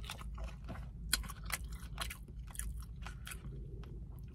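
Close-up sounds of someone chewing Popeyes fried chicken: irregular crunches and wet mouth smacks.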